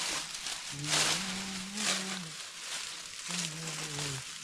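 Leafy fodder branches rustling and crunching as they are handled and bundled, with two louder crunches about a second and two seconds in. A low, drawn-out vocal sound is heard twice over the rustling.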